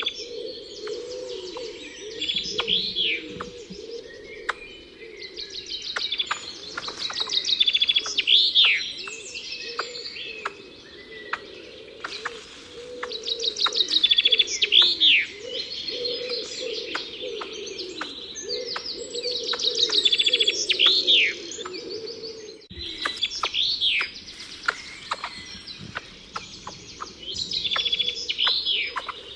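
Songbird singing a repeated phrase about every six seconds: a quick high trill ending in a sharp downward sweep, over a steady lower background chorus.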